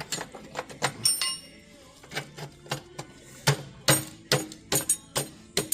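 Steel brake band knocking and clinking against the dozer's steering clutch housing as it is worked down into place: a string of irregular sharp metal knocks, one about a second in ringing briefly.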